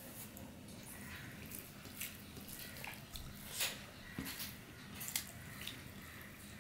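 Soft sounds of eating rice by hand: fingers mixing rice and curry on a plate, and chewing, heard as scattered faint clicks and wet smacks.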